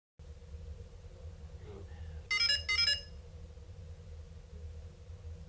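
Blade 350 QX3 quadcopter giving two short multi-note electronic beeps about two and a half seconds in, as it finishes its pressure sensor calibration and reboots. A low steady hum runs underneath.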